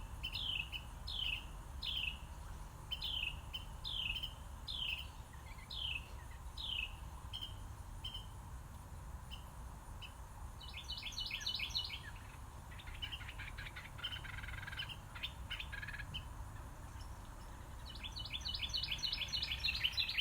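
Wild birds singing: a run of short downward-sliding chirps, about two a second, that fades out, followed by several bursts of rapid high trills. A steady low rumble of outdoor ambience lies underneath.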